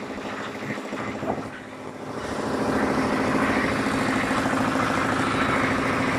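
An engine running steadily, growing louder about two seconds in and then holding level.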